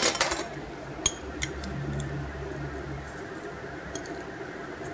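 A few faint, scattered clicks and clinks of a metal spoon against small dishes and a stainless saucepan, over a low steady hum.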